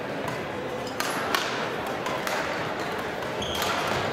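Badminton hall sounds: scattered sharp knocks of rackets hitting shuttlecocks and other small impacts, with a brief high squeak of court shoes near the end, over background chatter.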